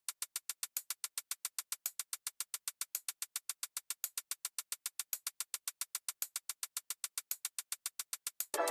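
Opening of an electronic music track: a fast, steady, high-pitched drum-machine tick, about six a second, with sustained synth chords coming in right at the end.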